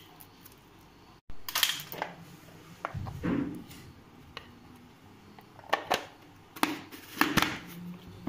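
Tomato pieces dropped into a plastic vegetable chopper's bowl and the lid fitted on: a duller thump, then several sharp plastic knocks and clicks.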